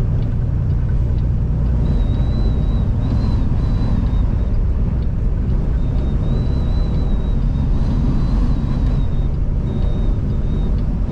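Inside a truck cab at road speed: steady low rumble of engine, tyres and strong wind against the cab, with a faint high, wavering whistle that comes and goes.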